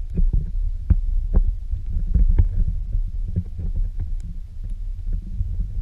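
Muffled underwater audio from a submerged camera: a steady low rumble of water against the housing, with irregular sharp clicks and ticks.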